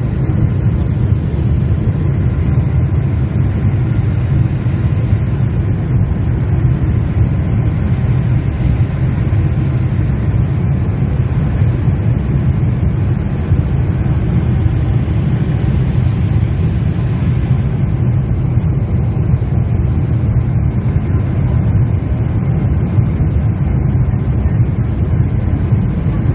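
Steady low rumble of a Boeing 747-8's engines and airflow heard inside the passenger cabin, a little brighter for a couple of seconds past the middle.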